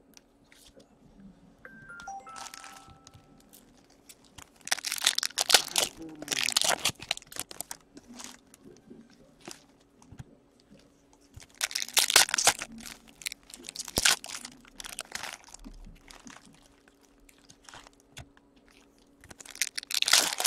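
Plastic trading-card pack wrappers crinkling and tearing as hockey card packs are opened, in three bursts: around five seconds in, again around twelve seconds, and again near the end.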